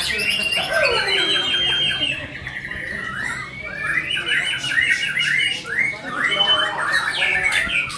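White-rumped shama (murai batu) singing continuously: a fast, varied run of rapid repeated notes and sliding whistles, slightly softer about two to three seconds in.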